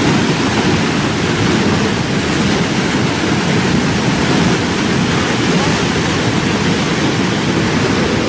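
Fast-flowing flash-flood water rushing in a steady, unbroken roar, heaviest in the low range.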